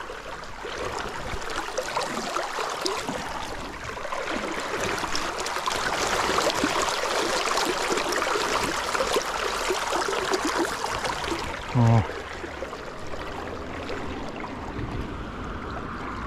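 Shallow river water splashing and gurgling around someone wading through it. The sound swells in the middle and eases off, with a short low thump about twelve seconds in.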